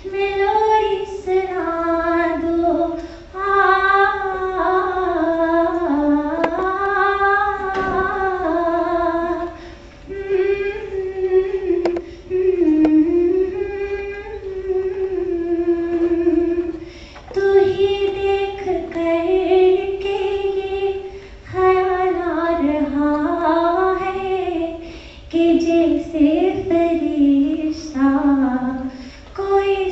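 A young woman singing solo into a handheld microphone, a melodic line in long held phrases with short pauses between them.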